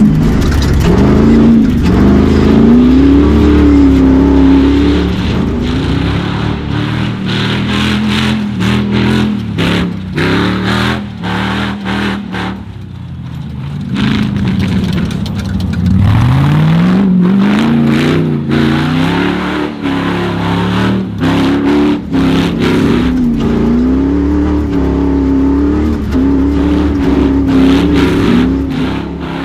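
Off-road race truck's engine revving hard and easing off again and again as it is driven flat out on grass, its pitch sweeping up on each acceleration, with a quieter lull about twelve seconds in.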